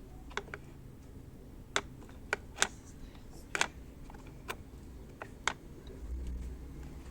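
Irregular sharp clicks and taps, about a dozen of them, from the parts of a mop bucket's wringer being handled while its spring is repaired. A low rumble comes in about six seconds in.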